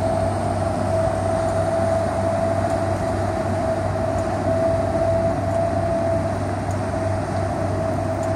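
Steady, continuous drone of a large inland cargo ship's diesel engines, with a constant whine above the low hum, as the ship turns under power.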